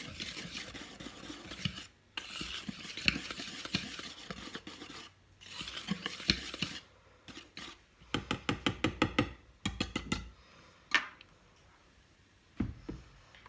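Dry flour mixture being stirred in a mixing bowl, a utensil scraping round the bowl in strokes with short pauses. About eight seconds in come a quick run of clicks, then a few single knocks.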